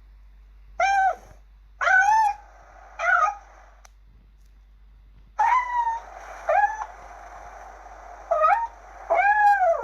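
Kitten meowing repeatedly: about seven short, high-pitched meows, each rising and then falling in pitch, with pauses between them.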